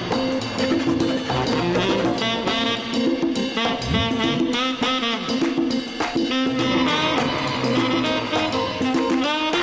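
Upbeat jazzy instrumental music with a drum kit and horns.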